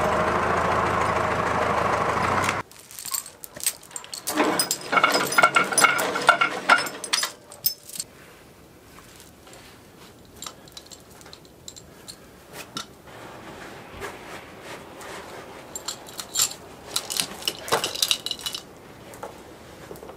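Tractor engine running steadily, cutting off abruptly about two and a half seconds in. Then a run of metallic clinks and jangles for several seconds, followed by quieter scattered clicks and knocks.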